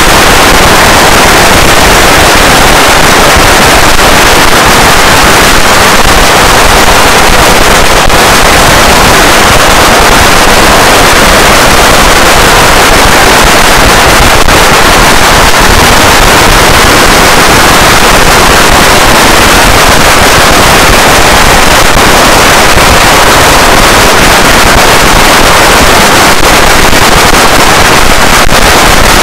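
Long strings of firecrackers going off in an unbroken rapid crackle, so loud that the recording is pinned near full scale throughout.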